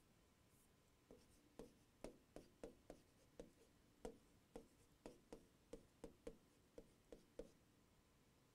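Faint light taps of a stylus on a tablet or touchscreen while handwriting, about three a second, starting about a second in and stopping about a second before the end.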